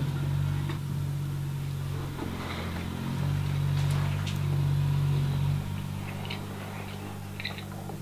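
A steady low engine drone from construction machinery outside, swelling a little midway and easing off after. A few soft chewing clicks sound over it.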